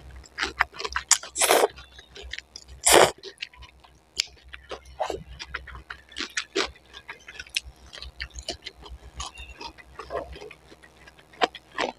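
Close-up mukbang eating of spicy noodles: two loud slurps of noodles about one and a half and three seconds in, followed by many small wet clicks of chewing.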